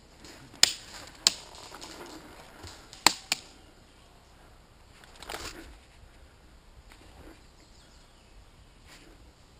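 Sharp single cracks of airsoft fire, four in all: one about half a second in, another about a second later, then a close pair about three seconds in. A softer rustle follows around five seconds.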